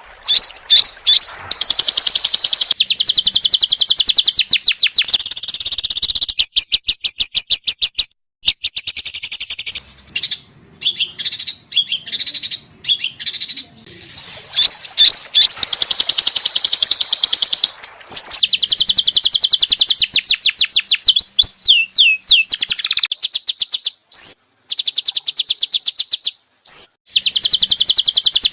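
A songbird singing loud, high-pitched, fast trills of rapidly repeated notes, mixed with sharp rising chirps. The song runs in long phrases broken by brief pauses and thins out to scattered notes about halfway through before picking up again.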